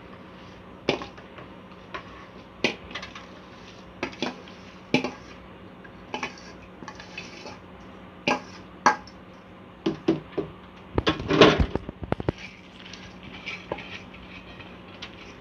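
Metal dish knocking and scraping against the rim of an aluminium pot as soaked rice is tipped into boiling water: scattered sharp clinks every second or two, with a longer clattering run about eleven seconds in.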